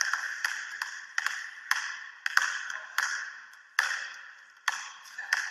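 Two basketballs being dribbled on a hardwood gym floor: sharp, uneven bounces about two a second, each ringing on briefly in the gym.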